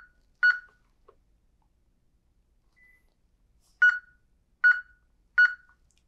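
Touchscreen alarm keypad beeping once for each key tap as a Wi-Fi password is typed in: short identical beeps, two at the start, then three more about a second apart after a pause.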